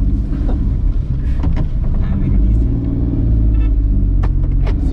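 Car engine and road rumble heard from inside the cabin while driving, steady, with a few short clicks.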